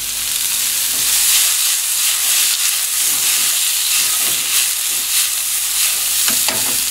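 Sliced onions, green peppers and mushrooms sizzling in hot olive oil in a frying pan with a steady hiss. A few knocks and scrapes come through as the pan is tossed on the stove.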